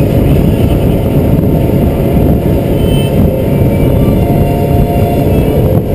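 Small motorboat running at speed across open water: a steady low roar of wind buffeting the microphone, mixed with engine and hull noise.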